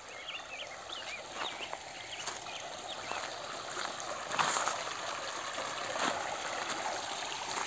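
Shallow stream trickling steadily over stones and gravel, with a few crunching footsteps on the gravel bank.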